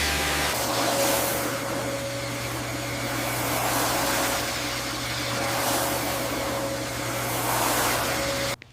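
Steady whir of a small electric motor, with a constant whine and a low hum, that cuts off abruptly near the end.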